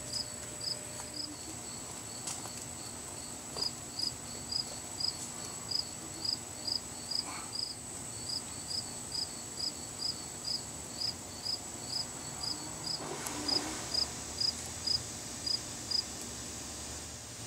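Cricket chirping steadily at about two short, high chirps a second, pausing once briefly and stopping shortly before the end, over a faint steady high-pitched insect drone.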